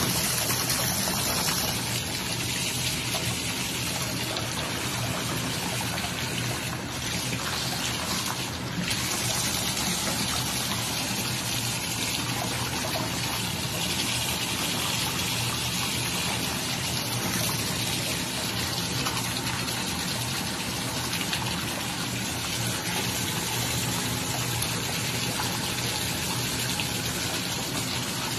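Water running steadily from a bathtub spout and splashing into the tub.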